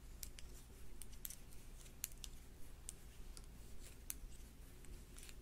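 Faint, irregular clicks of metal knitting needles tapping against each other as stitches are purled.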